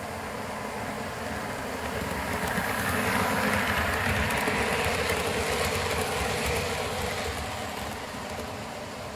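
Model diesel-hauled passenger train running over the track and pointwork, its motor and wheels making a rumbling whir that swells as it passes close and fades away, with faint clicking of wheels over rail joints at its loudest.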